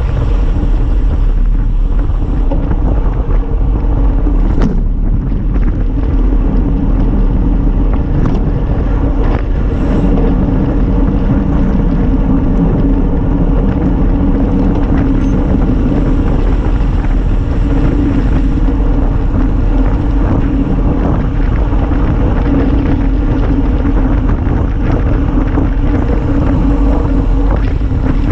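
Wind rushing over the microphone of a handlebar-mounted camera on a road bike at race speed, with a steady hum and rumble from the tyres on the asphalt. A few sharp clicks stand out about five, eight and ten seconds in.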